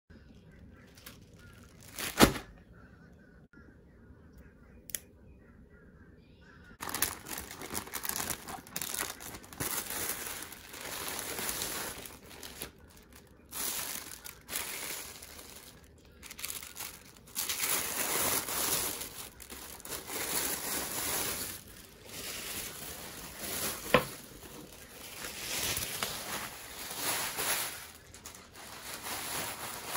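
Tissue paper crinkling and rustling in irregular bursts as a handbag is unwrapped. A single sharp knock about two seconds in is the loudest sound, and another click comes near the end.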